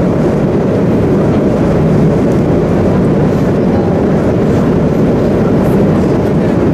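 Steady cabin noise inside a Boeing 777-200 airliner in flight: an even, deep rumble of engines and airflow that holds at a constant level.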